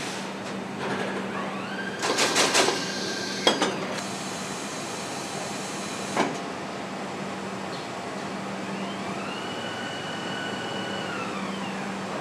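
Foundry casting-line machinery over a steady hum. About two seconds in, a quick run of metallic clacks and a knock from the pneumatic core gripper. Later an electric drive whine rises, holds and falls as a robot arm swings a pouring ladle in over the engine-block mold.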